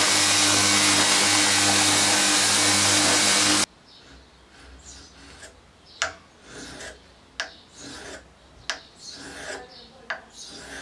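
A belt grinder runs steadily with a motor hum while a knife edge is held against the belt, then cuts off abruptly. It is followed by hand-sharpening strokes of the blade along a block clamped in a vise: quiet rubbing swells with a sharp click about every second and a half.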